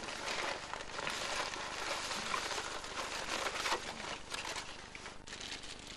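Paper fast-food bag and wrappers rustling and crinkling as they are handled, in irregular scratchy bursts.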